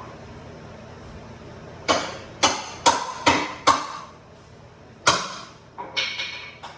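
Hammer blows, five in quick succession about two seconds in, then three or four more near the end, each with a short ringing decay.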